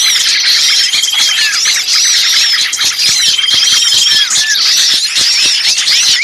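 Agitated chorus of many small songbirds: dense, overlapping chirps and short arching whistles, with a buzzing trill of about a second that recurs roughly every three seconds. A looped bird-lure recording of excited small-bird calls, used to draw wild birds in.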